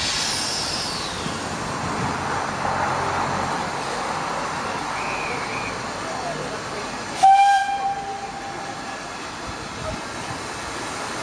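Steam tank locomotive standing and hissing steam steadily, with one short whistle blast about seven seconds in that fades away over a second or so.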